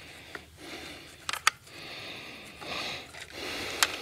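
Trail camera being handled and threaded onto a tree-mounted camera holder's screw: a few sharp plastic clicks and taps, two close together about a second and a half in and another near the end.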